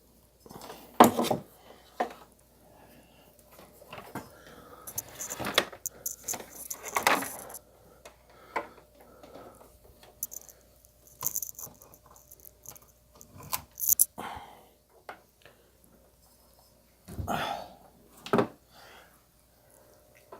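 Irregular clatter, knocks and rattles of parts of a vivarium being handled and moved about during teardown. The sharpest knock comes about a second in, and more are scattered through.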